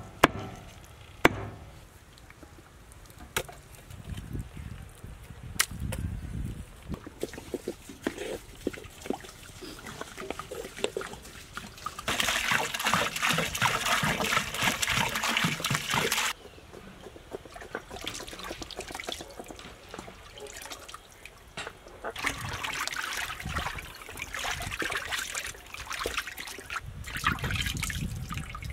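Water poured from a vessel over cut murrel fish pieces in a steel basin, a steady rush for about four seconds midway, then water sloshing again as the pieces are washed. A few sharp knocks of a knife on the cutting board come in the first several seconds.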